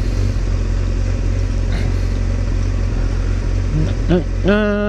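Motorcycle engine idling steadily while the bike stands still. About half a second before the end there is a short, steady, pitched sound.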